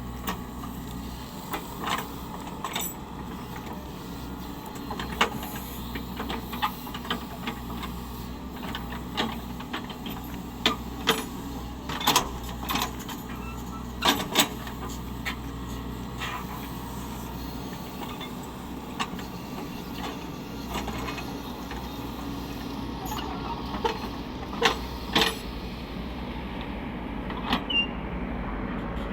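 Cat 307E2 mini excavator's diesel engine running steadily, with scattered sharp knocks and clanks of metal on stone throughout.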